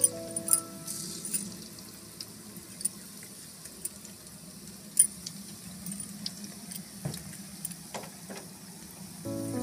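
Pakoras of cauliflower and potato in gram-flour batter deep-frying in hot oil in an aluminium kadai: a steady sizzle with scattered sharp clicks. Background music briefly at the start and again near the end.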